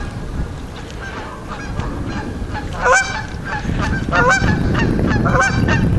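Geese honking: a run of short, repeated honks starting about halfway through, after a quieter first few seconds.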